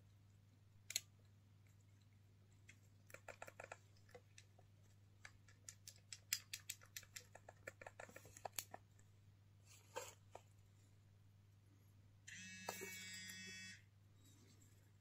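Faint, scattered plastic clicks and taps as a small handheld PC's case and buttons are handled and pressed. Near the end comes a buzzy electronic beep about a second and a half long, over a steady low hum.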